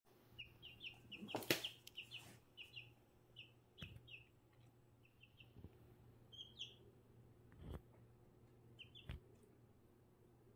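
Baby chick peeping: a quick run of short, high peeps over the first three seconds or so, then scattered single peeps, all faint. Several sharp knocks are mixed in, the loudest about a second and a half in.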